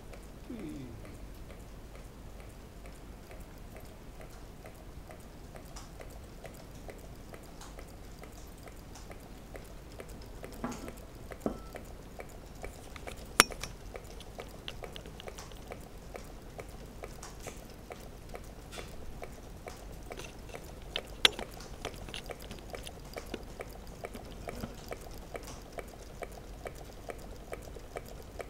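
Meccano model Stirling engine running, its displacer and piston linkage giving a light, irregular ticking and clicking of small metal parts. The ticks grow busier about a third of the way in, with two sharper clicks in the middle.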